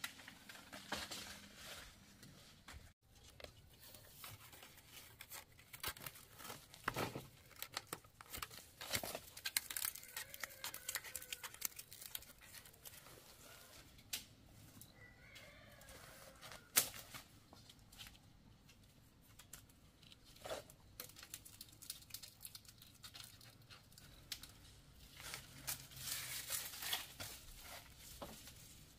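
Irregular tearing and crackling of plant material worked by hand, with scattered light clicks and a few louder snaps.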